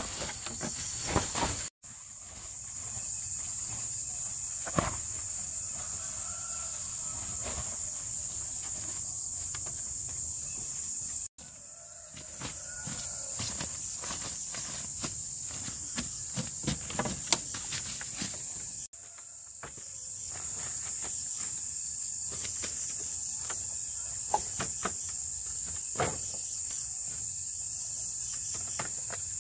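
Steady, high-pitched chorus of forest insects, with scattered short knocks and rustles of handwork over it.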